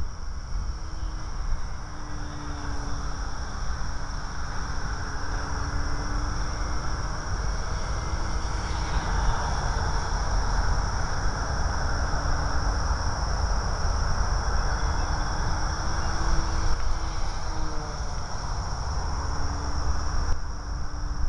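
Electric RC plane (Parkzone P-51D) flying at a distance: its brushless motor and propeller give a faint, wavering buzz that comes and goes as it passes. Under it run a steady high-pitched hum and a low rumble on the microphone.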